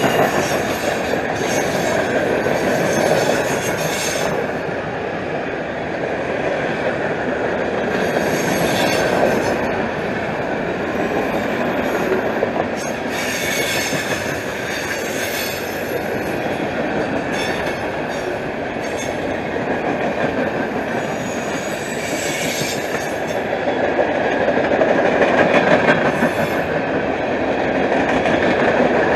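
Freight train cars rolling past, steel wheels running on the rails in a steady rumble, with recurring bursts of high-pitched wheel noise every few seconds.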